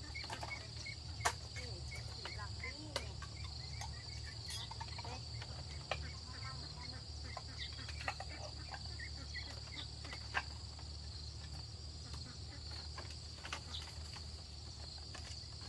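Insects chirring steadily in a high pitch, over a low steady hum, with a few sharp clicks and taps scattered through, the strongest about a second in.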